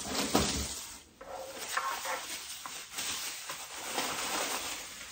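Irregular rustling of packing paper and plastic wrap as a wrapped item is lifted out of a cardboard box and unwrapped.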